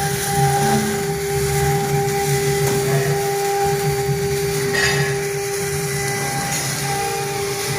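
1325C stone CNC router's spindle engraving stone: a steady, high whine over a grinding noise, with a short scrape about five seconds in.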